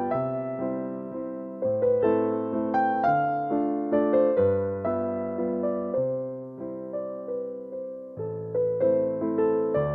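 Soft background piano music: a slow melody of single struck notes over low held bass notes, each note fading after it is played.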